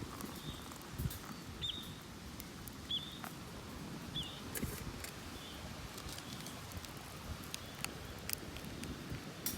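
A bird calling outdoors with short high chirps, several about a second apart in the first half and fainter ones after, over scattered small clicks and crackles.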